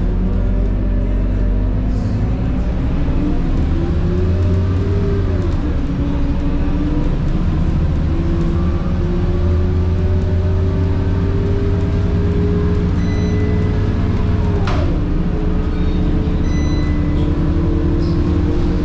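Scania K230UB city bus under way, its DC9 diesel running under a steady drone while the ZF Ecomat 6HP504C automatic gearbox gives a high-pitched whine that climbs as the bus gathers speed. The whine's pitch drops sharply at a gear change about five seconds in and again near the end, the second with a brief knock.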